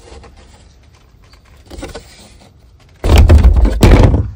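Plastic engine cover of an Audi 3.0T V6 being pulled up off its mounts: a faint brief rub about two seconds in, then a loud scraping clatter for about a second near the end as the cover comes free.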